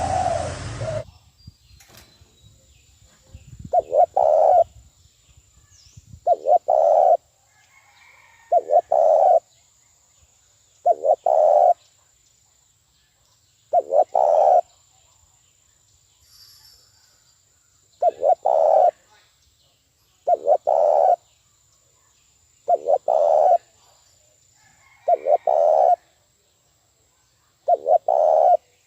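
Spotted dove cooing: a decoy bird's short coo phrases, about ten of them, one every two to three seconds, the call used to lure and provoke wild doves. A louder burst of other sound fills the first second and cuts off suddenly.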